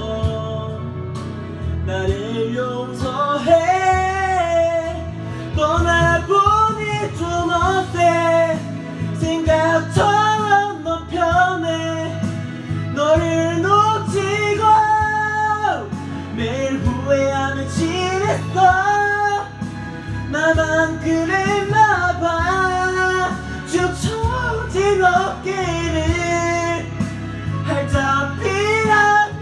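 A man singing a Korean pop song into a karaoke microphone over a backing track, with long held notes.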